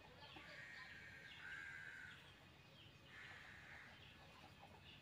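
Near silence, with a few faint bird calls about half a second to a second long over a low hiss.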